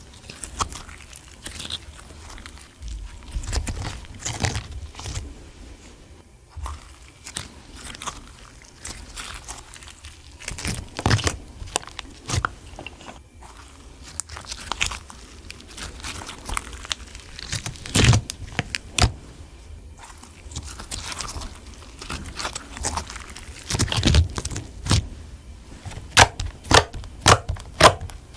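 Slime being squished, stretched and mixed by hand, with irregular sticky clicks and crackles that grow denser and louder near the end.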